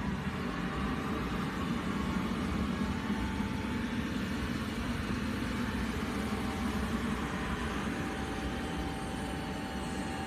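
Steady running hum of industrial machinery: a constant low drone with a faint, high, steady whine over it.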